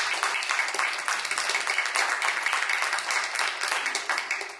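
Audience applause, many hands clapping together, dying away near the end.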